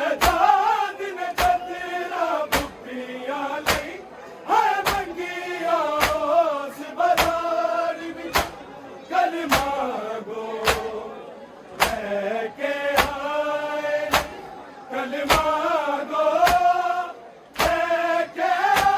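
A nauha, a Shia mourning lament, chanted by male voices over a steady beat of hands striking chests in unison about once a second. This is matam.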